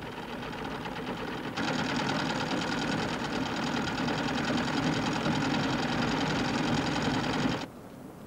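Sewing machines running with a fast, steady clatter; it gets louder about a second and a half in and cuts off suddenly near the end.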